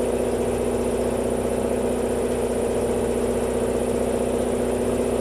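Air compressor running steadily, a loud, even mechanical drone with a constant hum, charging air for the tyre machine.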